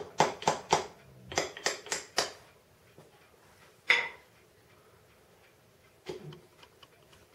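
Sharp metal-on-metal taps and clinks from work on a snow thrower's steel auger shaft as washers are taken off it: a quick run of about eight taps in the first two seconds, a single ringing clink about four seconds in, then a few softer clicks.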